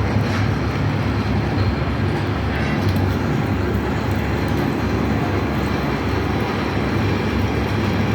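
Metal lathe running steadily, a low mechanical rumble with a noisy clatter over it.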